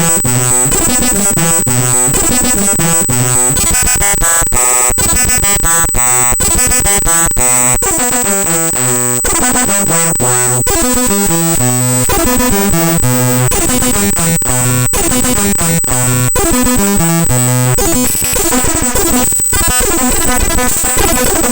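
The raw binary data of the Windows mspaint.exe program file played back as audio: loud, harsh digital buzzing made of stepped tones that jump abruptly from one pitch to another. Short patterns repeat, there are frequent sudden cuts, and a thin high whine sits over it all.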